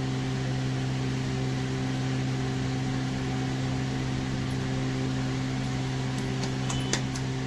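A steady low machine hum, like a motor running, with a few light clicks near the end.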